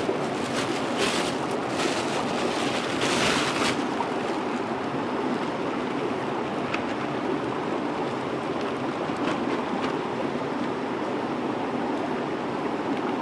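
River water rushing steadily over rocks, with rustling and handling close to the microphone in the first few seconds and a few small clicks later.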